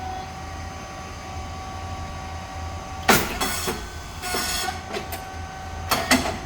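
Puffed rice cake machine running: a steady hum from its motor, hydraulic pump and fan, then about three seconds in a loud pop followed by a hiss as the heated moulds open and the rice cakes puff. A second, shorter hiss follows, and a few sharp clacks come near the end.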